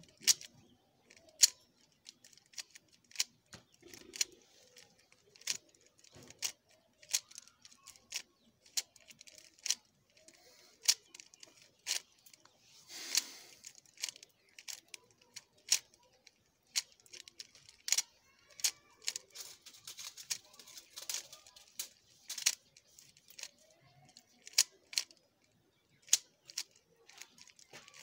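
A plastic 3x3 Rubik's cube being turned by hand: irregular sharp clicks and clacks as its layers snap round, about one or two a second, with a brief longer rustle of quick turns about halfway through.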